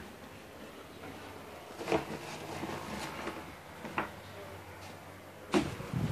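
Rummaging noises: things shuffled and shifted about, with three sharp knocks about two, four and five and a half seconds in, the last the loudest, as objects are moved during a search.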